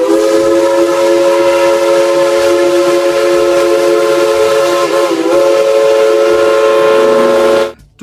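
Steam locomotive dressed as Thomas the Tank Engine sounding its chime whistle: one long, loud chord of several notes that wavers briefly about five seconds in and cuts off abruptly near the end.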